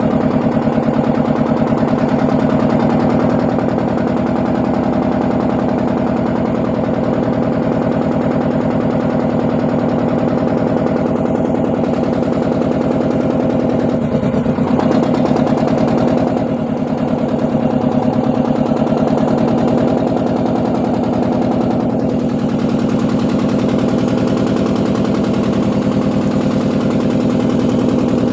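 A motor boat's engine running steadily with a rapid, even beat.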